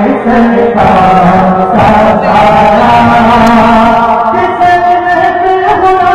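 A man reciting a naat, singing long held notes that bend and slide from one pitch to the next.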